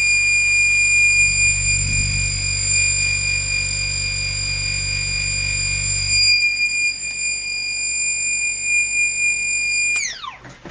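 NEMA 34 stepper motor (1600 oz-in) spinning at high speed, giving a loud steady high-pitched whine with a low hum underneath. The hum drops away about six seconds in, and near the end the whine falls quickly in pitch as the motor slows to a stop.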